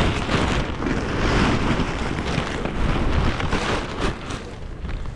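Loud rustling and crumpling of the nylon fabric of a deflated inflatable being bundled up and carried against the microphone, easing off a little near the end.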